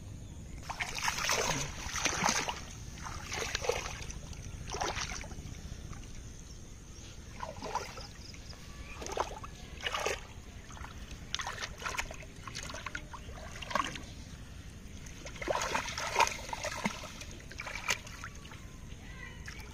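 Hands splashing and sloshing in shallow muddy water while groping for fish: irregular splashes, some louder than others, with louder clusters about a second in and again around sixteen seconds.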